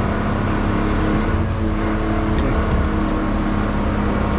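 Engine running steadily with a constant hum, on a test run of the freshly resealed hydraulic gillnet drum drive.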